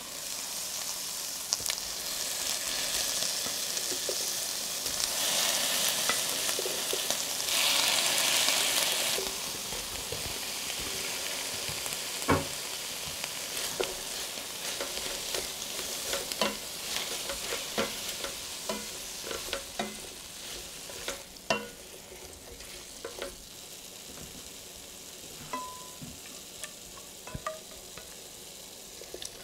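Bell pepper strips and chicken pieces sizzling in a stainless steel sauté pan, loudest in the first ten seconds or so. After that the sizzle settles lower while a spatula stirs the food, with scattered clicks and knocks against the pan.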